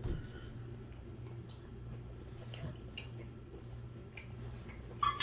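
Faint chewing and mouth sounds of a person eating steak, with scattered small clicks over a steady low hum. Near the end, a short clink of cutlery on a plate.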